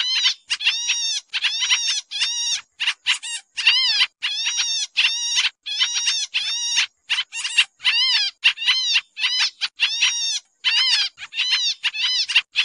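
Pied trillers (kapasan kemiri) calling noisily: an unbroken run of short, harsh, arching chatter notes, about three a second. This is a bird-catcher's lure call.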